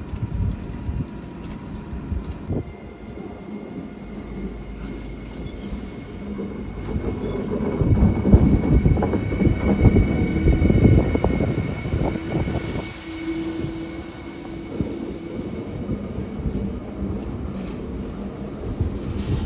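Siemens class 183 Taurus electric locomotive passing close by, its wheels clattering and rumbling over the rails. The clatter grows loudest about halfway through. A steady high-pitched squeal runs under it for much of the pass, and a brief hiss comes just after the loudest part.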